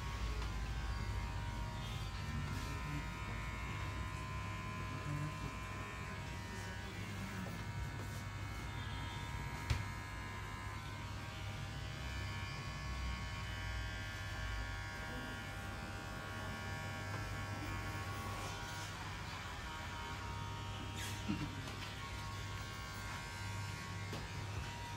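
Steady electric buzz of a small motor running without a break, with a light click about ten seconds in and another near twenty-one seconds.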